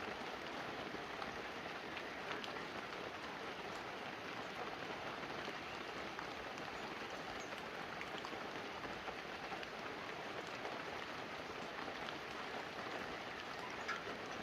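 Light, steady rain falling on banana leaves and a roof, with single drops ticking here and there.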